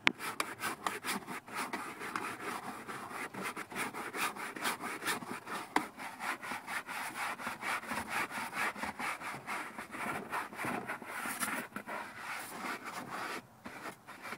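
Rapid, even strokes of homemade air freshener being applied by hand inside a truck cab, about five a second, stopping shortly before the end.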